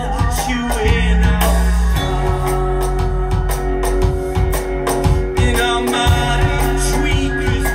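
Live band music played loud through a venue PA: sung vocals over a steady drum beat, with sustained keyboard tones and heavy bass.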